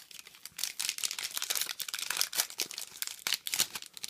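Foil wrapper of a Yu-Gi-Oh booster pack crinkling as it is handled and torn open: a run of irregular sharp crackles.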